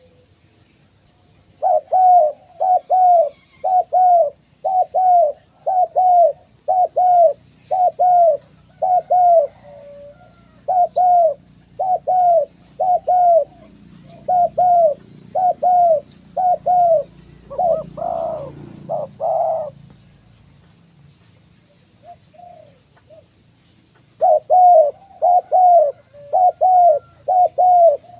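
Spotted dove giving a fast run of short, repeated coos, about two a second. The run breaks off a little past the middle and starts again near the end.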